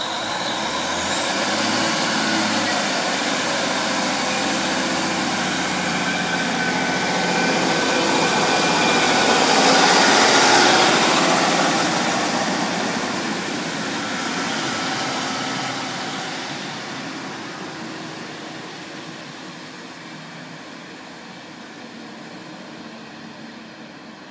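A Class 153 diesel multiple unit and its Cummins diesel engine pulling away from the platform. A rising whine comes near the start, and the engine sound swells to its loudest about ten seconds in as the unit passes, then fades slowly as it draws away.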